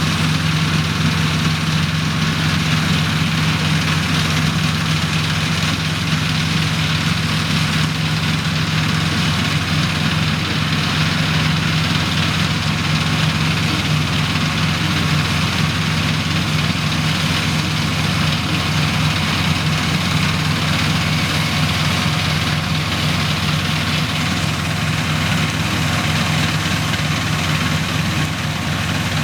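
The Perkins 4.154 four-cylinder diesel of a 1971 Dronningborg 900 combine harvester running steadily, with a constant broad hiss over the engine note.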